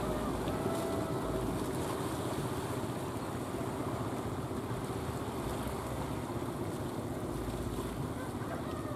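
Wooden fishing boat's inboard engine running steadily as it approaches, with the wash of the sea and some wind on the microphone.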